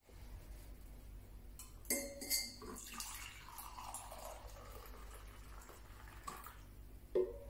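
Liquid poured from a stainless steel vacuum carafe into a ceramic mug, running steadily for about three seconds. A couple of clinks come before the pour starts, and there is a knock near the end.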